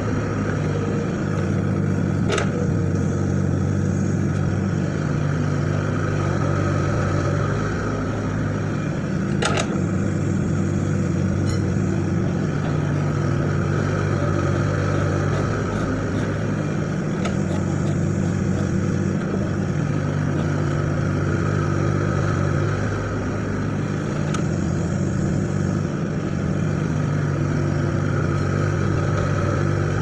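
Hitachi mini excavator's diesel engine running steadily under work, with two short sharp clicks, about two seconds in and near ten seconds.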